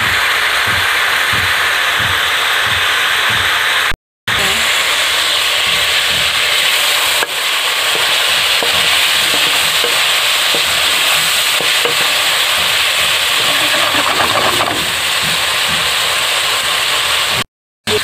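Cubed chicken frying in hot oil in a wok, a steady loud sizzle, stirred and turned with a wooden spatula. The sound cuts out briefly about four seconds in and again near the end.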